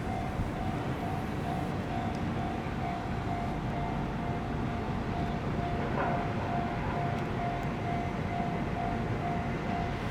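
Japanese level-crossing warning bell at a crossing without barriers, ringing in a steady, evenly repeating electronic ding, over the low rumble of a freight train's diesel locomotive.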